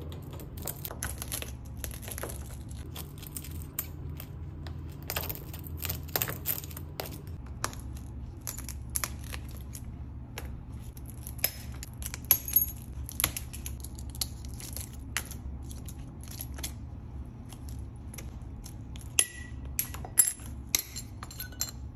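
Cracked iPhone XS Max back glass being chipped and scraped off the phone's frame with a metal-tipped hand tool: an irregular run of sharp crunching clicks and cracks as the glass breaks away. A low steady hum runs underneath.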